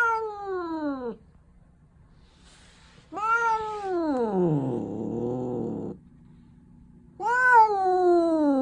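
Newly trapped female tabby stray cat yowling in a wire cage trap: three long, drawn-out calls, each falling in pitch. The first comes at the very start, the longest about three seconds in slides down into a low moan, and the last comes near the end.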